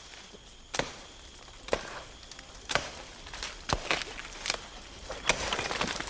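Chopping into a felled palm trunk to cut out the heart of palm: sharp woody strikes about once a second.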